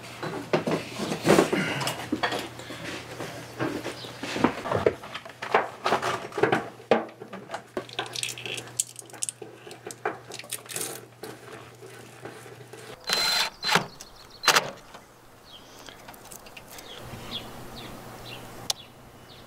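Handling noise of cable and line fittings being worked by hand: a string of irregular clicks, knocks and rattles, with a louder pair of knocks about thirteen seconds in.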